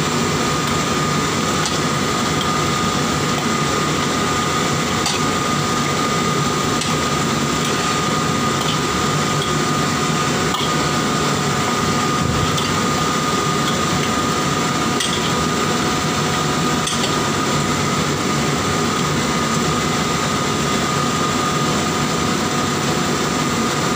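Gas wok burner and kitchen ventilation running under a simmering wok, a steady rushing noise with a constant high whine, and a few faint clicks from utensils against the wok.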